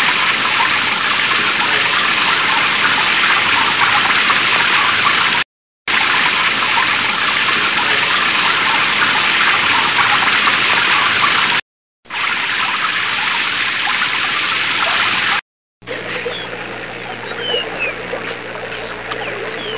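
A run of separate ambience recordings of steady rushing water, each cut off abruptly by a short silence, three breaks in all. The last recording is a little quieter, with short high chirps and a low steady hum over the water noise.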